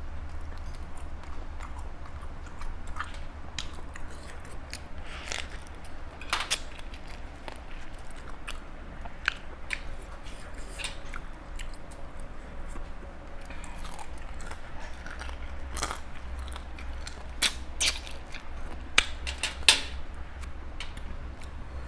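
Close-up chewing and crunching of spicy Thai seafood papaya salad, with irregular crunches and a few sharper, louder cracks near the end. A steady low hum runs underneath.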